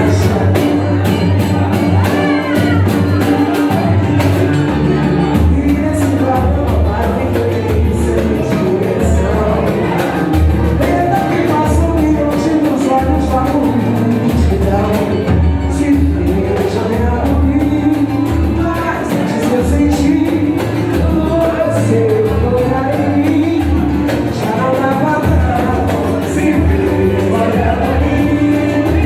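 Brazilian pagode song: a voice singing a melody over a steady bass line and regular percussion.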